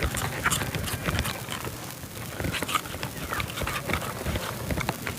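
Irregular knocks and clicks of knife work on a yellowfin tuna's head, blade and fish striking the cutting board.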